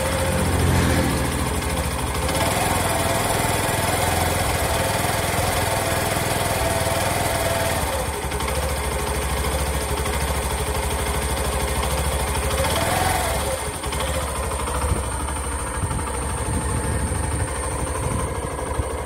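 Hero Passion Pro BS6 motorcycle's fuel-injected single-cylinder engine idling steadily.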